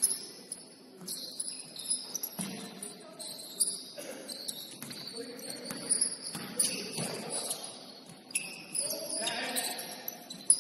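Basketball shoes squeaking on a hardwood gym floor in short high chirps, with a basketball bouncing every so often and players calling out.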